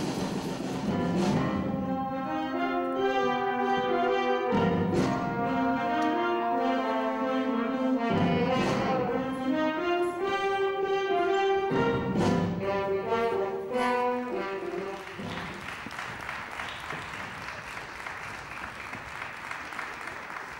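Live stage band playing sustained chords, punctuated by a few drum hits. About three-quarters of the way through the music stops and audience applause takes over.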